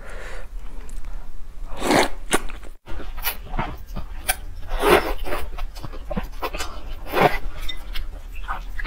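Close-miked slurping of noodles: several loud, hissy slurps about two to three seconds apart, with smaller wet mouth clicks of chewing between them.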